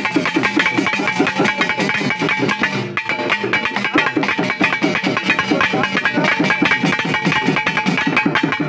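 Tamil ritual pambai and udukkai drums played together in a fast, driving rhythm of rapid strokes, with a brief break about three seconds in.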